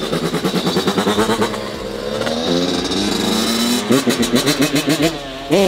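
Suzuki RM85 two-stroke dirt bike engine revved in repeated throttle blips, its pitch climbing and dropping over and over, with a steadier held rev in the middle.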